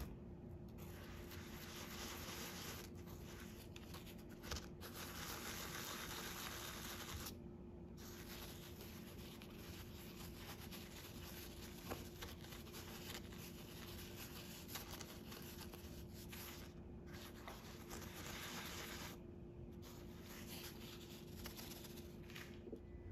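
Granulated sugar grating and rustling as fried doughnuts are pressed, rubbed and turned in a bowl of sugar, in long gritty strokes with a few brief pauses. A faint steady hum runs underneath.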